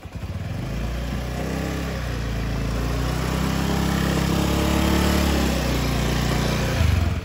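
A Honda motor scooter's engine running at low speed as the scooter is ridden slowly in through a gate; it starts abruptly, grows a little louder, and cuts off suddenly near the end.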